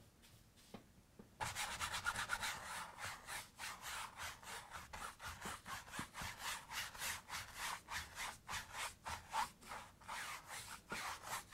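A 2-inch bristle paintbrush scrubbing oil paint across a canvas in quick, steady back-and-forth strokes, starting about a second and a half in.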